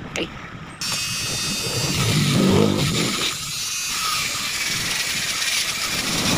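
Handheld rotary tool switched on just under a second in and running steadily, its bit grinding carbon deposits out of the port of a Suzuki Gixxer 150 cylinder head. Its high whine dips briefly in pitch about three seconds in as the bit bears on the metal.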